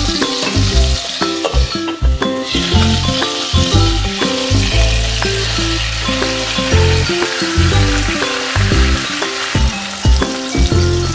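Soy-marinated pork chops frying in a hot nonstick pan, a steady sizzle that drops out briefly about two seconds in. Background music with short bass notes plays underneath.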